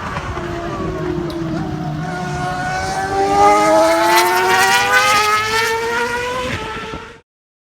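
Ferrari racing car engine accelerating hard, its pitch rising steadily as it gets louder past the middle, then the sound cuts off suddenly near the end.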